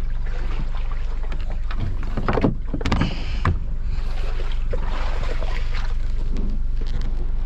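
A bow rope being handled and a small boat's hull knocking as it is launched off its trailer, with a cluster of knocks about two to three and a half seconds in, over a steady low hum.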